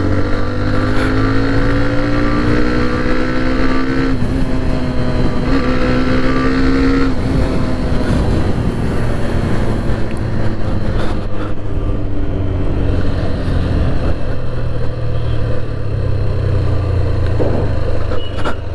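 Hero Xtreme 125R motorcycle's single-cylinder engine and exhaust running, its pitch climbing gently for the first few seconds, breaking about four seconds in and climbing again. After about seven seconds the clear engine note gives way to a steady low rumble mixed with noise.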